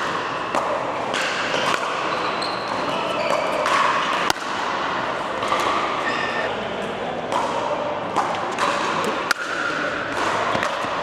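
Pickleball rally: sharp pops of paddles striking a plastic ball, with bounces, at irregular intervals over a steady background of talk and play from other courts.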